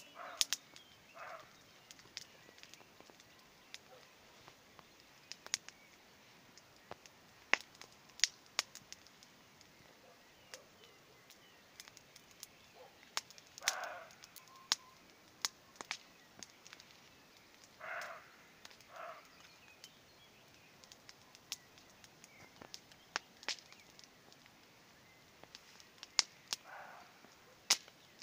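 A roe deer barking: about five short, hoarse barks spaced several seconds apart, two in quick succession past the middle. Sharp crackling snaps from a bonfire are heard throughout and are the loudest sounds.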